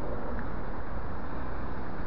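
Distant city traffic: a steady low rumble of cars and buses with no single vehicle standing out.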